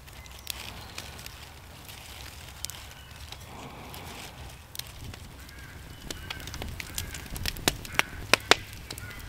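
Wood campfire crackling: faint scattered ticks at first, then a run of loud, sharp pops and snaps from about seven seconds in.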